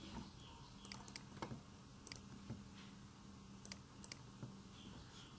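Faint, scattered clicks of a computer keyboard and mouse, a handful of taps, over a low steady electrical hum.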